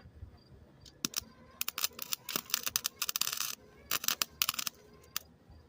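Electric arc welder crackling in about five short bursts of tack welding on the bicycle's steel, with brief quiet gaps between.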